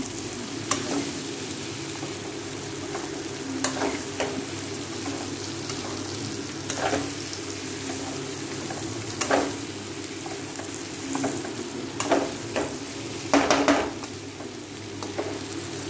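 Metal spatula stirring and scraping fried bitter gourd pieces through onion-tomato masala in a metal kadai while it sizzles. The spatula strokes are separate scrapes every couple of seconds, the loudest about 13 seconds in.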